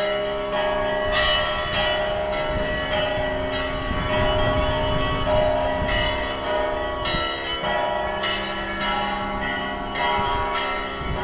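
Orthodox church bells ringing: several bells of different pitch struck one after another in an ongoing peal, each note ringing on and overlapping the next. It is the kind of ringing that marks the start of a church service.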